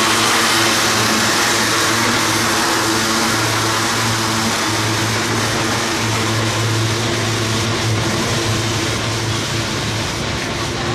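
Freight train rolling past at close range: a steady rumble of wheels on rail with a low engine drone underneath, easing off slightly near the end.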